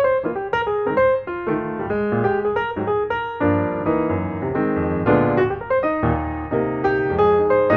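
Background piano music: a melody of quick, separate notes over sustained chords.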